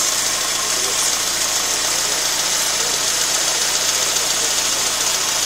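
Fiat Tempra's carburetted petrol engine idling steadily, with a strong even hiss over the engine sound.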